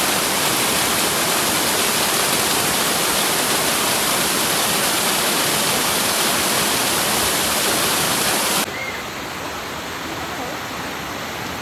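Loud, steady rush of fast-flowing water. About three-quarters of the way through it cuts abruptly to a quieter, softer rush of water.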